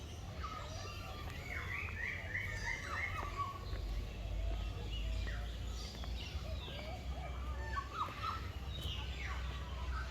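Several birds chirping and calling: a quick run of about five notes about two seconds in, then scattered short calls that slide down in pitch. Underneath is a steady low rumble.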